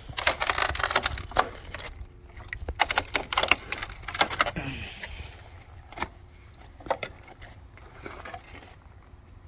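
Handling noise from unpacking: two bursts of clattering and scraping, each a couple of seconds long, then a few scattered knocks.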